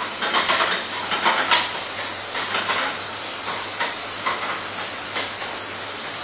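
Food sizzling in a hot pan on a gas range while a metal utensil stirs and scrapes it in irregular strokes.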